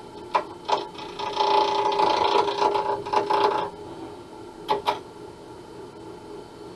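SIP 01936 lathe running with a steady hum while a turning tool scrapes the spinning acrylic pen blank for about two and a half seconds, with a few sharp clicks around the cut; afterwards only the lathe's hum carries on.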